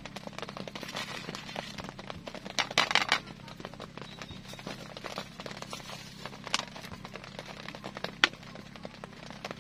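Light clicks, taps and crinkling from hands handling things on a table while preparing food, with a louder crinkling rustle about three seconds in and a sharp click near the end.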